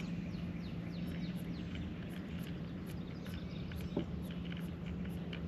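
Birds chirping, many short falling notes over and over, over a steady low hum, with a single knock about four seconds in.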